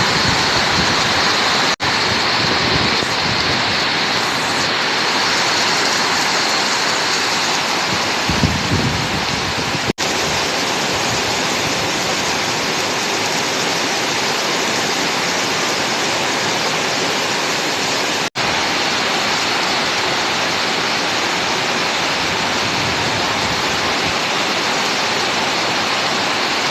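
Heavy rain falling in a steady, loud downpour. It cuts out for an instant three times.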